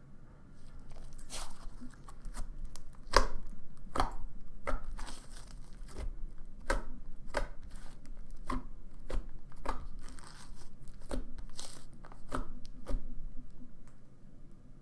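Thick, matte clay slime being squished and pulled in the hands, making a series of short sticky pops and crackles at an uneven pace, about one or two a second.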